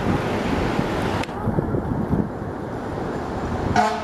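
Low, steady rumble of a 2013 Seagrave Marauder fire engine's diesel engine in city traffic, with wind on the microphone. A short horn blast sounds near the end.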